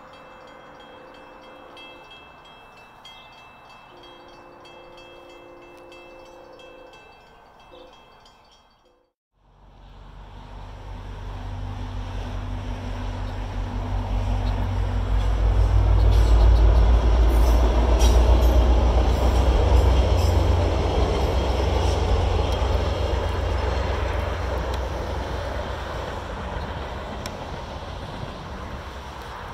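Via Rail passenger train hauled by a diesel locomotive passing over a rail bridge: a deep rumble that builds to a peak and slowly fades as the train goes by. Before it, a faint pitched tone sounds twice over quiet background.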